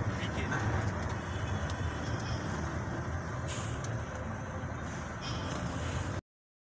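Steady engine and road rumble heard from inside a vehicle's cab as it moves slowly in traffic, with a brief hiss about three and a half seconds in. The sound cuts off suddenly about six seconds in.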